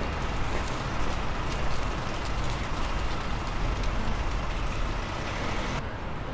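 Street traffic: a steady low rumble of passing vehicles with a hiss of city noise over it. The upper hiss drops away suddenly near the end.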